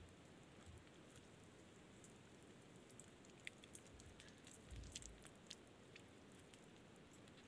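Near silence: faint scattered small clicks and ticks, with a few soft low thumps about five seconds in.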